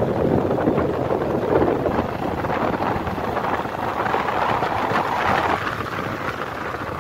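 Wind rushing over the microphone of a moving motorbike, a loud unsteady roar mixed with road noise.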